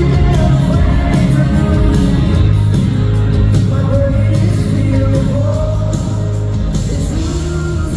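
Live concert music: an amplified pop-rock band with a lead singer holding long, wavering notes over a heavy bass line.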